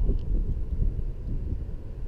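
Wind buffeting the camera microphone: a loud, irregular low rumble that rises and falls with the gusts.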